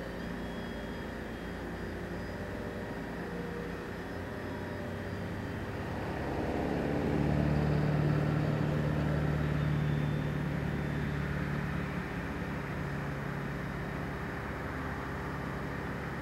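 Brushless electric motor and propeller of a Piper Cub-style RC plane in flight, a steady hum that swells about six seconds in as the plane comes nearer and fades again after about ten seconds.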